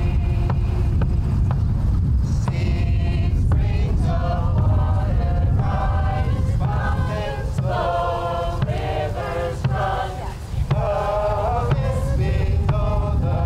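A group of voices singing a slow chant in held notes, with strokes of a bass drum. A steady low rumble runs underneath.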